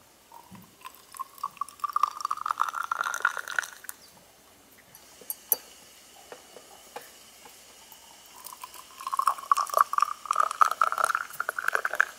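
Water poured from a samovar's tap into pear-shaped tea glasses, twice: each pour is a trickle whose pitch rises as the glass fills. Between the pours a few light clicks as a glass is moved.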